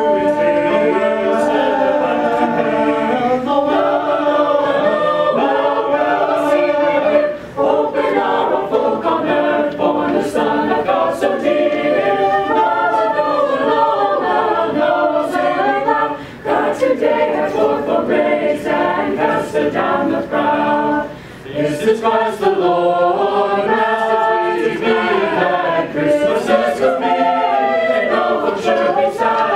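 Mixed-voice choir singing a cappella in harmony, in phrases with short breaths between them about 7, 16 and 21 seconds in.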